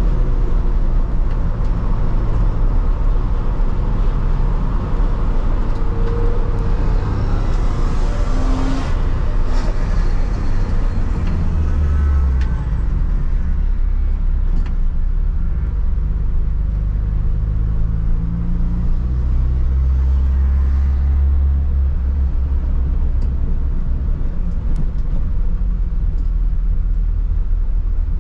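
Engine and road noise of an R53 Mini Cooper S with its supercharged 1.6-litre four-cylinder, heard from inside the cabin. The higher road and wind noise fades about halfway through, leaving a low engine drone as the car slows down.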